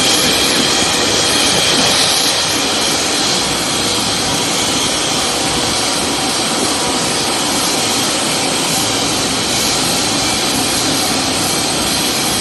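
Steady, loud rushing noise with a high whine from a Boeing 747 powered up for a landing gear swing test while its main gear extends. No separate clunks from the gear stand out.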